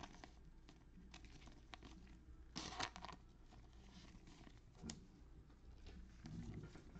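Faint rustling and sliding of trading cards being handled and flipped in gloved hands, in a few short scrapes. The loudest scrape comes about two and a half seconds in.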